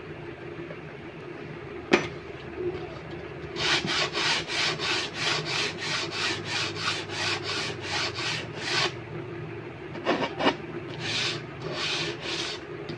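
The edge of a melamine-faced particle board door panel being filed by hand: quick rasping strokes, about three a second, for some five seconds, then a few more after a short pause. A single sharp knock about two seconds in, before the filing starts.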